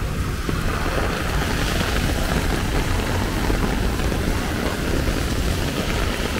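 Heavy rain falling on an umbrella over a dense, steady low rumble; a brighter hiss swells about a second and a half in.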